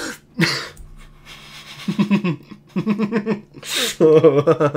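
A man laughing hard, stifled behind his hand: three short bouts of choppy giggling broken by sharp gasping in-breaths.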